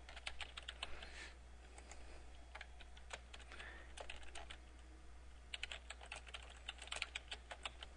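Faint typing on a computer keyboard, in short bursts of keystrokes with pauses between them.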